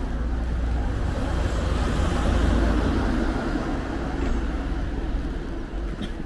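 Street traffic noise, a hiss that swells and then eases off as a car goes by, over a steady low rumble of wind on the microphone.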